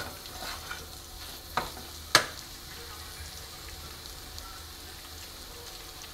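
Spiced tomato masala frying in oil in a nonstick kadai: a faint steady sizzle, with the spoon stirring and knocking twice against the pan at about one and a half and two seconds in, the second knock louder.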